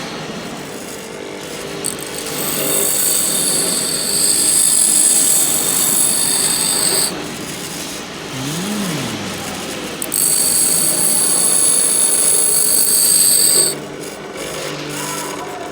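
Pedestal grinder running, with a drill bit pressed to the grinding wheel twice, about four seconds each time. Each pass gives a loud, high-pitched grinding sound that stops sharply when the bit is lifted off.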